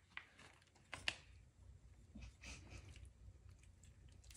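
Near silence in a small room: a couple of soft clicks in the first second and faint brief rustles a little after two seconds.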